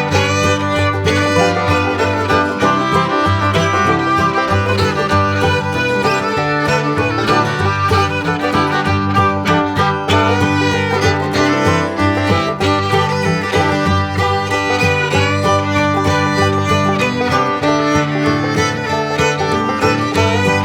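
Instrumental background music with a steady bass line.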